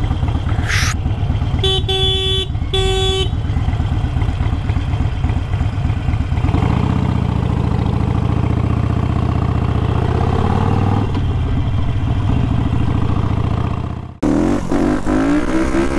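Motorcycle engine running in slow traffic, with two short horn toots about two seconds in. The engine picks up revs about six seconds in and eases off near eleven seconds, then the sound cuts off sharply near the end.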